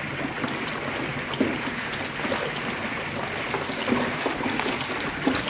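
HHO gas from a 354-plate hydrogen generator's outlet hose bubbling hard through a bucket of water: a steady churning with many small pops, the sign of the generator producing gas at full output rather than blowing air.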